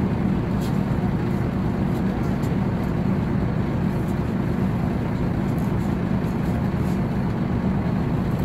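Diesel engine of a Sinar Jaya intercity coach running with a steady low rumble.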